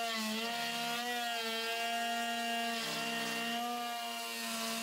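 Router spindle of a Genmitsu 3020-Pro Ultra CNC running steadily as a 1/4 inch bit carves a bowl into a block of wood. Its whine wavers slightly in pitch as the cut loads it, over the hiss of the bit chipping the wood.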